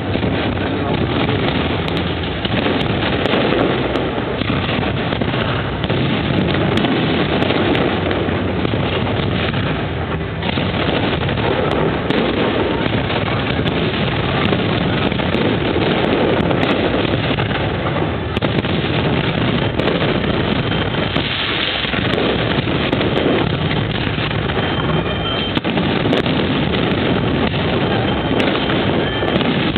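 Fireworks display: a dense, unbroken run of bangs and crackling that merges into a steady rumble.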